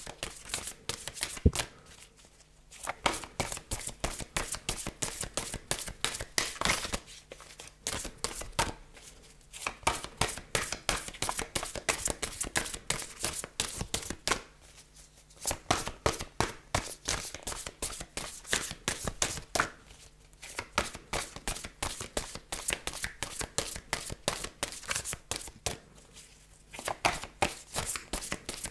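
A deck of oracle cards being shuffled by hand: rapid flicking and riffling of the cards, in about five rounds of several seconds each with brief pauses between.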